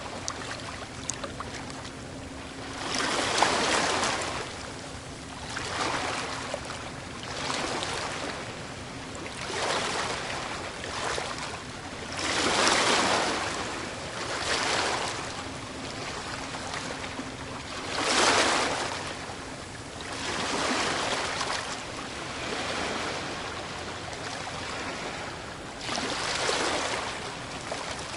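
Ocean waves breaking on a beach: a continuous rush of surf that swells and falls back every two to three seconds, the loudest breakers about a third and two thirds of the way through. A faint steady low hum runs beneath most of it.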